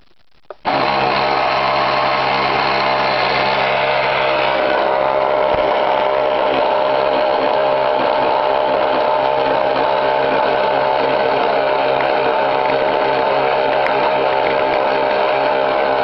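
Small brushed electric motor of an Aerokits Sea Rover model boat starting suddenly about a second in and then running at a steady speed with an even whine, spinning the propeller in air with the boat out of the water.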